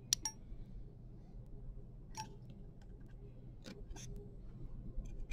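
Quiet, sharp clicks of surgical instruments (a needle holder and forceps) gripping and releasing the needle while a continuous suture is run: two close together at the start, then a few more spaced a second or two apart.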